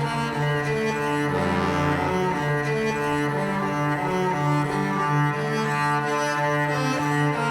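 Music of slow, sustained low string notes, each held for about a second before shifting to the next pitch.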